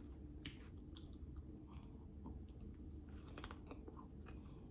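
Faint close-miked chewing, with soft, scattered mouth clicks and smacks over a low steady hum.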